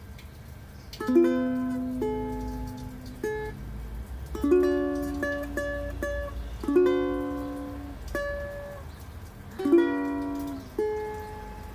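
A new World of Ukes Pioneer T1 acacia ukulele being strummed slowly. Single chords are struck about once a second and left to ring out, with a chord change every strum or two.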